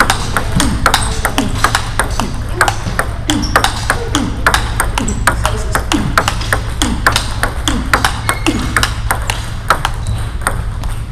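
Table tennis balls clicking sharply and rapidly off paddles and the table in a continuous rally, with more clicks from other tables in the hall.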